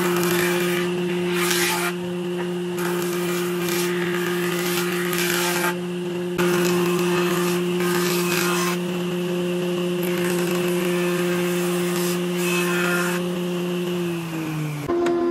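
Combination woodworking machine's jointer running with a steady motor hum, while a wooden board is pushed over the spinning cutterhead in several passes, each pass a loud rasping cutting noise. Near the end the hum drops in pitch as the machine slows.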